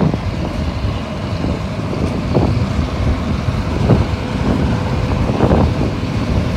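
Vintage passenger train hauled by the NOHAB diesel locomotive MY 1135 running through a station, heard from an open carriage window: a steady rumble of the moving train, with a few short louder knocks or clatters about two and a half, four and five and a half seconds in.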